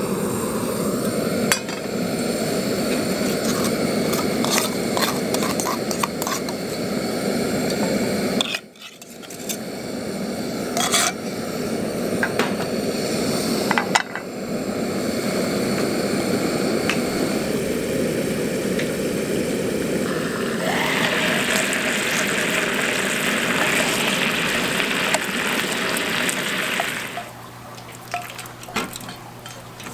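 A canister gas camping stove burner running steadily under a small pan of teriyaki sauce simmering down to thicken. Metal pan and lid clink now and then. For several seconds near the end a brighter sizzling hiss rises from the reducing sauce, then stops.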